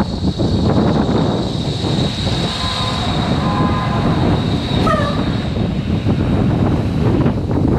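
Wind rumbling on the microphone while riding an electric scooter, with a thin steady high whine throughout. Brief pitched tones are held through the middle, and a short tone that drops in pitch comes about five seconds in.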